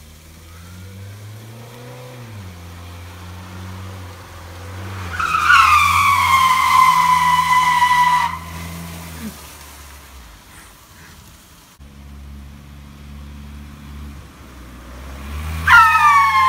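Tyres of a front-wheel-drive automatic Honda Accord squealing as the car is slid through a turn, twice: a loud squeal about five seconds in that dips slightly in pitch and lasts about three seconds, and another starting near the end. An engine drones steadily underneath.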